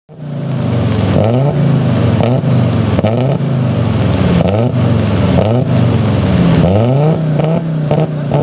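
Audi Quattro Group A rally car's turbocharged five-cylinder engine revving hard, its pitch climbing and dropping back again and again, about once a second.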